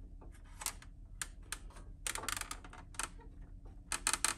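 Irregular light clicks and taps of a metal billet grill shell being handled and shifted into place against a truck's grille, with a quick cluster of clicks near the end.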